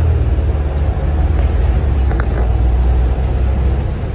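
Inside a Volvo B7RLE single-deck bus under way: the rear-mounted six-cylinder diesel engine gives a steady low drone over road noise, easing slightly near the end. A faint short squeak comes about two seconds in.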